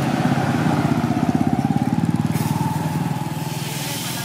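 A small engine running close by with a rapid, even pulsing, loudest in the first two seconds and fading toward the end. A hiss joins it a little past halfway.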